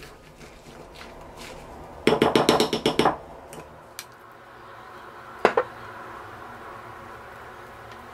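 Wooden spoon clacking rapidly against a ceramic bowl while mixing: a run of about ten quick knocks in a second, followed by a single knock a couple of seconds later.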